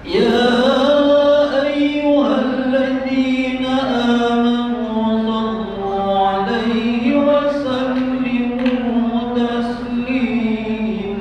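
A bilal's lone male voice chanting the Eid al-Fitr prayer call in Arabic, in long drawn-out melodic phrases held on steady notes, with short breaks between phrases.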